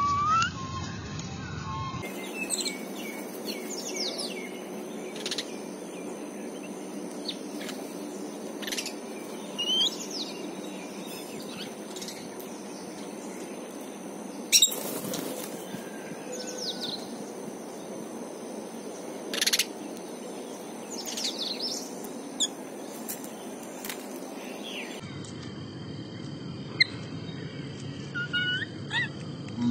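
Small birds chirping in scattered short, sharp calls, a few sliding down in pitch, over faint steady high-pitched tones.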